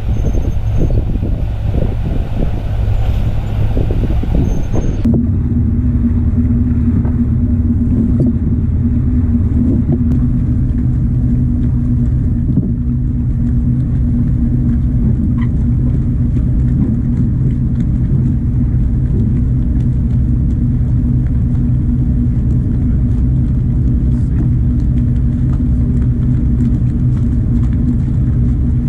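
A boat's engine running under way, with rushing wind and water noise over it. About five seconds in it changes abruptly to a steady low engine drone with an even hum.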